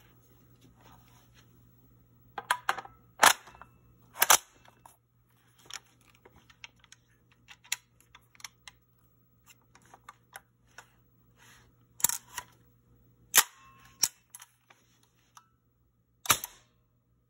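Sharp mechanical clicks and clacks from a Big Bang Airguns M4-style CO2 rifle being handled: half a dozen loud, crisp clacks spread out, with lighter taps and rattles between.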